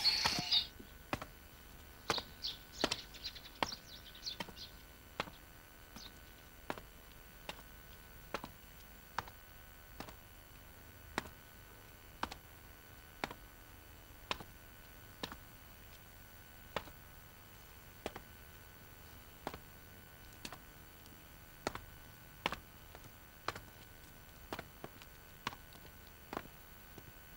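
Faint footsteps on a hard floor: sharp single taps, a quick cluster early and then about one step a second, over quiet room tone.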